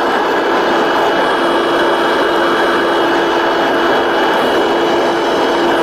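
Inside the cabin of a Bombardier Dash 8 Q400 twin turboprop on approach: a steady drone of engines and propellers over a rushing airflow noise, with a held tone.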